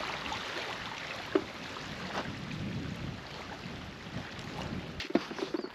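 Wind and small waves lapping at a stony lakeshore, a steady rushing wash of water and air, with a few light clicks.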